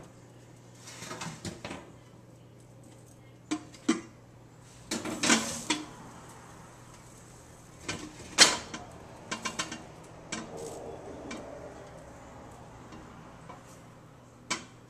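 Lidded glass casserole dish handled into an oven and set on its wire rack: scattered clinks, short scrapes and knocks of glass and metal, the loudest a sharp knock about eight seconds in, over a steady low hum.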